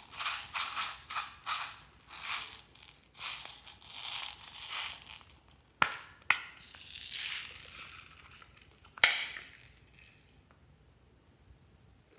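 Small green frog-shaped plastic case being handled and opened: a quick run of rattling, crunching scrapes, then two sharp plastic clicks a moment apart around six seconds in as the case is pried open, a stretch of rustling, and one more sharp click about nine seconds in.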